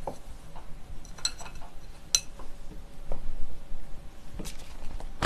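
Condiment bottles being handled on a table: two short ringing clinks about a second apart, then a few soft knocks.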